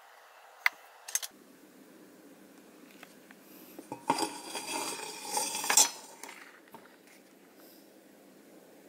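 Metal clinks and clattering from handling a tin-plate can fitted with copper pipes: a few sharp clicks about a second in, then about two seconds of rattling and scraping in the middle.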